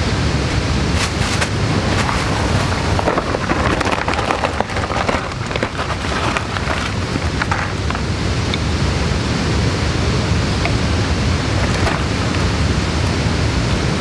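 A steady, loud rushing noise throughout, with light clicks and clatters of thin wooden kindling sticks being laid into a steel fire-pit ring during the first half.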